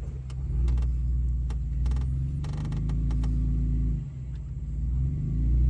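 A Jeep's engine running at low revs as it crawls over rocks, with creaks and knocks from the body and suspension. The engine eases off about four seconds in and picks up again near the end.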